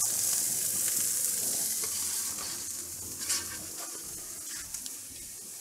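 Halved romaine lettuce hearts, oiled and salted, sizzling cut side down on the hot grate of a gas grill while they sear over direct heat. The sizzle slowly fades, with one brief tap a little after three seconds in.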